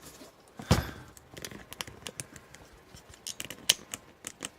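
A knock a little under a second in, then a run of small, sharp metal clicks and taps: parts and tools of an ASSA Twin 6000 lock being handled as it is taken apart.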